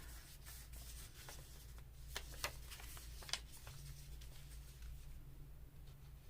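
Paper being handled at close range: faint rustling with a few light clicks and taps.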